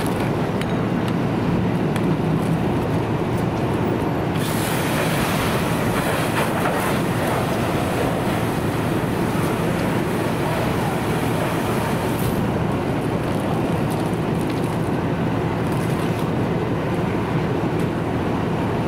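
A fire engine's pump engine runs with a steady low drone. From about four seconds in to about twelve seconds, a loud hiss of the hose stream spraying water into the burning dumpster rides over it.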